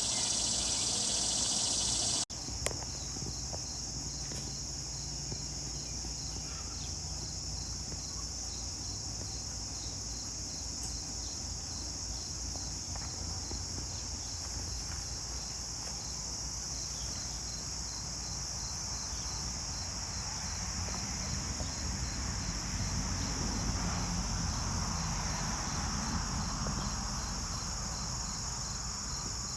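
Crickets and other insects calling: a steady high-pitched chorus, with one cricket chirping at a regular, even pace.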